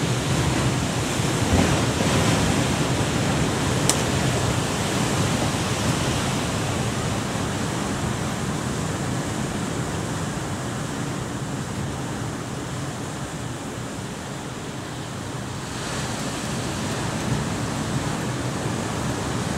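Sea surf breaking and washing over a rocky shore, a steady rushing that swells and eases. A single sharp click sounds about four seconds in.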